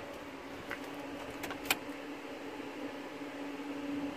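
A faint steady low hum with a few light clicks, one sharper click about one and a half seconds in, in a car with its ignition switched off.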